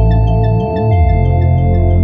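Electronic music: held synth chords over a deep sustained bass, with light, quick bell-like notes above. About halfway through, the bass bends up and back down, then settles on a new note.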